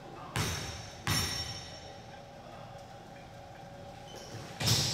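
Basketball thudding on a gym floor: two bounces close together near the start and another near the end, each ringing out in the hall.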